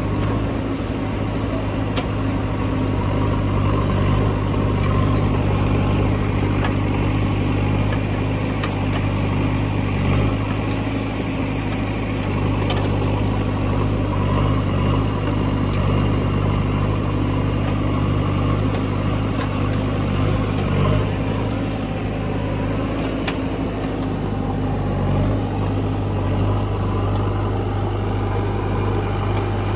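Heavy diesel engine of earth-moving machinery running steadily at a low, even note, with a few faint knocks on top.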